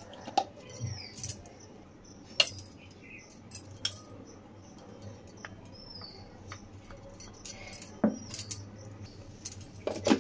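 Scattered light clicks and knocks of a small plastic mixer-grinder jar being handled, with sharper clicks near the end as the blade assembly is fitted onto the jar. The grinder motor is not running.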